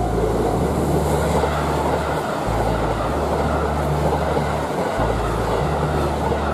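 A diesel express train passing close by over a Y-shaped turnout, with a steady rumble and rolling wheel noise.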